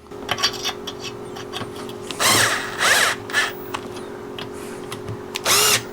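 A small handheld power tool run in three short bursts, spinning up and down each time, with light clicks and taps of handling in between.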